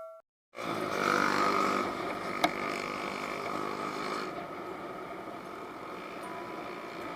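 Vehicle running on the road, picked up by an action camera's built-in microphone: a steady engine hum mixed with wind and road noise, starting about half a second in after the last of a chime cuts off, with one sharp click a couple of seconds later.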